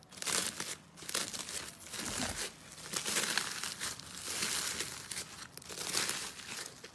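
Slime being squeezed and worked by hand, crackling and crinkling in repeated waves about once a second.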